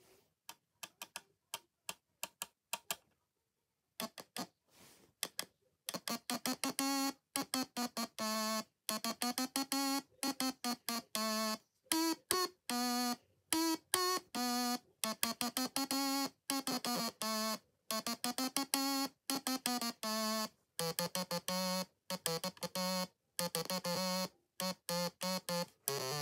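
Stylophone playing a melody one note at a time: bright, buzzy tones broken by short gaps between notes. The first few seconds hold only short faint sounds; the loud playing starts about six seconds in.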